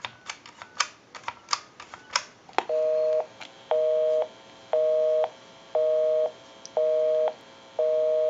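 Telephone number being dialed as a string of sharp clicks, then a click as the line connects. After that comes the North American busy signal: two low tones together, beeping on and off about once a second.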